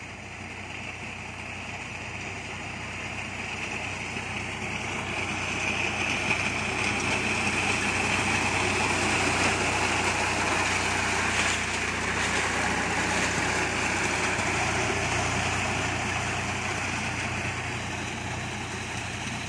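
Tractor-mounted reaper running as it cuts through tall standing crop: a steady engine with the rushing of the cutter and stalks. It grows louder as the tractor passes close by, about midway, then fades as it moves away.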